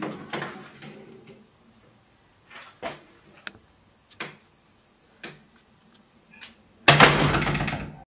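Screen door swinging shut under a pneumatic door closer, with several light clicks and knocks from the door and its fittings. Near the end comes a sudden loud noisy sound about a second long.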